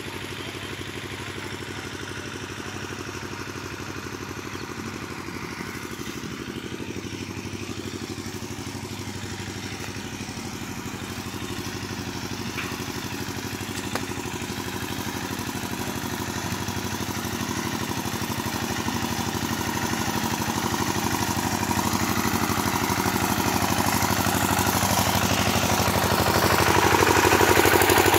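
An engine running steadily with a low, even hum, growing louder through the second half.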